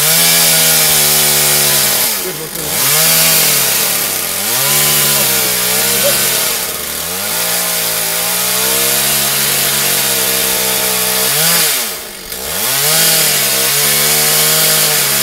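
Chainsaw at full throttle cutting through a tree branch, its engine speed dipping and picking back up several times, most deeply about twelve seconds in.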